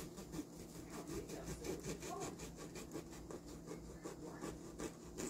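Serrated bread knife sawing through a loaf of Italian bread with quick, repeated back-and-forth strokes.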